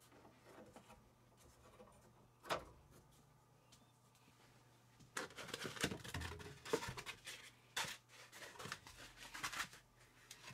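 Foam packing block being worked loose and pulled out of a 3D printer's frame, scraping and rustling against the parts in a run of short scratchy noises through the second half. A single sharp click comes about two and a half seconds in.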